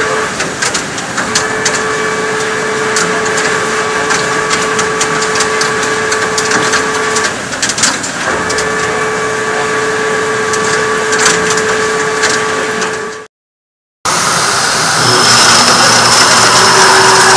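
Hwacheon H6 horizontal machining center drilling with a 120 mm U-drill under flood coolant: a steady hum with coolant hiss and many small clicks, the hum dropping out twice briefly. After a sudden drop to silence about 13 seconds in, a 200 mm face mill cutting metal comes in louder and denser, with a high whine.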